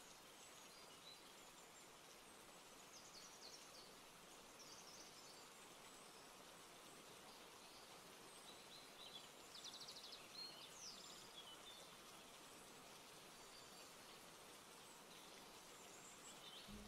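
Near silence: faint steady hiss, with a few faint, brief high scratchy sounds about three seconds in and again around nine to eleven seconds.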